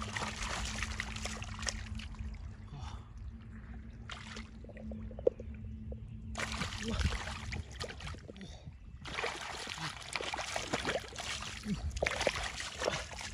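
Water splashing and sloshing in stretches as hands work in shallow water and mud, with scattered small knocks. A low steady hum runs under roughly the first half and stops about six seconds in.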